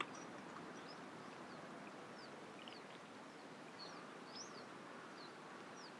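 Faint outdoor ambience: many short, high bird chirps scattered over a steady rushing noise.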